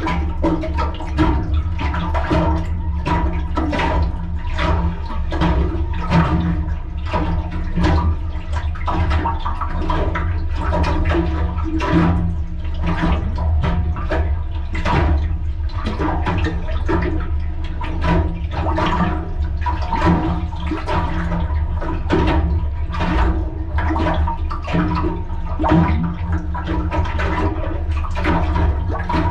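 Water sloshing and gurgling inside an aluminium boat hull's anchor well, over the steady low hum of the bilge pump running as it is tested to drain the well.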